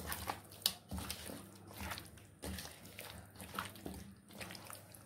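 Hand squishing chicken leg pieces in a wet, thick masala marinade in a stainless steel bowl: irregular soft squelches with occasional light clicks.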